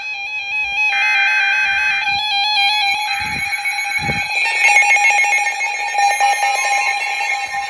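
Emergency alert data code from NOAA Weather Radio: short buzzy bursts of warbling data tones about a second apart, then about six seconds in a steady warning alarm tone starts. It marks the start of a new severe thunderstorm warning, and music plays along with it.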